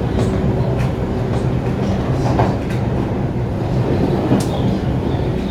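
Red set electric train car C7396 running, its traction motors and wheel gears giving a steady low growl, with a few sharp clicks from the wheels on the track. The growl is the sign of badly worn traction motor or wheel gears, where the helical gears should only hum.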